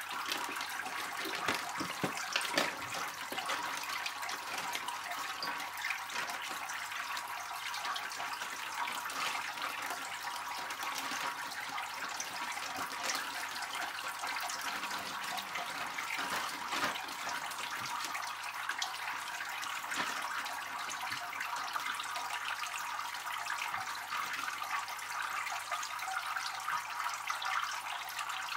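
Water from an aquarium filter outlet pouring steadily onto the tank's surface: a constant splashing trickle.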